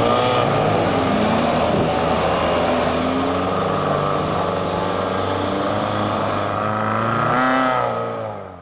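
Engine of a lifted 2004 Toyota pickup revving, rising and falling in pitch, as its 35-inch mud-terrain tyres spin through deep mud; fades out at the very end.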